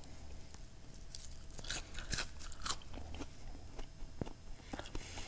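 A person chewing a mouthful of crispy twice-fried French fries, with irregular crunches.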